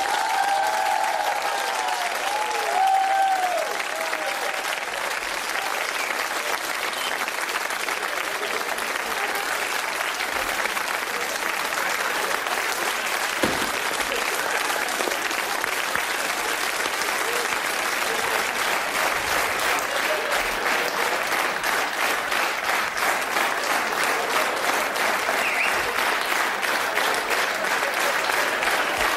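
Studio audience applauding steadily, with a few voices calling out over the clapping in the first seconds.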